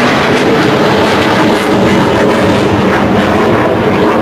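Military jet aircraft flying past overhead: loud, steady jet engine noise.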